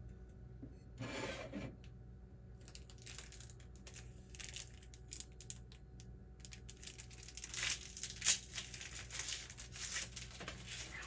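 Quick, repeated rubbing and scraping strokes from hand work on food. They start about three seconds in and are loudest a little past the middle.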